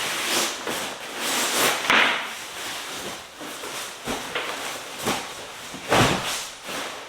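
Footsteps and the knocks of a door being handled inside a wooden hut, over a steady rushing noise. Two louder knocks come, about two seconds in and near the end.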